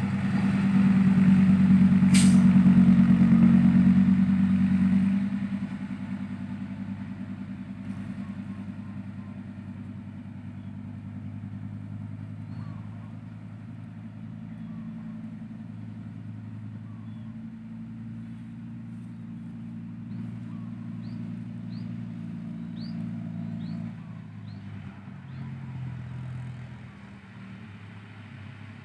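Heavy diesel engine of earthmoving machinery running, loud and working hard for the first five seconds, then settling to a steadier, lower level and dropping off near the end. A single sharp click about two seconds in.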